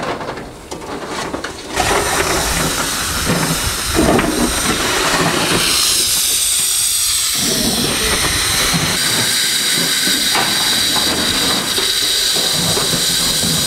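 Steam locomotive Merddin Emrys, a Ffestiniog Railway double Fairlie, letting off steam: a loud, steady hiss that starts suddenly about two seconds in and holds evenly.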